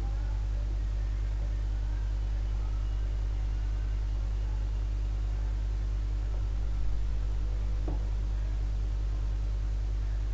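Steady low hum, with faint music barely audible beneath it.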